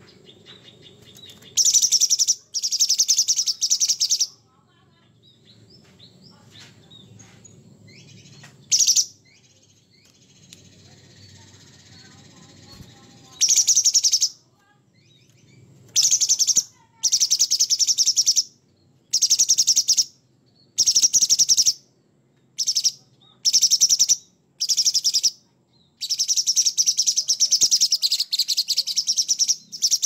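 Orange-bellied leafbird (cucak cungkok) singing harsh, rapid chattering phrases in separate bursts of about half a second to a second and a half. After a quiet stretch in the first half, the phrases come in quick succession, ending with a longer phrase of about three seconds near the end.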